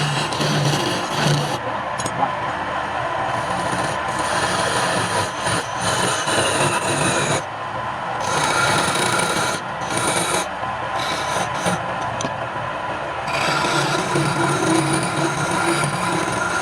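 Woodturning on a lathe: a tool rasping and scraping against the spinning wood, with the lathe's steady hum underneath. The rasping comes and goes as the tool is eased off now and then.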